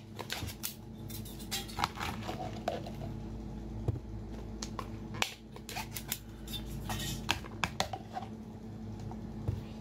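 Food being tipped out of glass jars onto a serving platter: a run of sharp clicks and clatters as cherry tomatoes and then pieces of fried food tumble out, with the glass jar knocking against the food and plate.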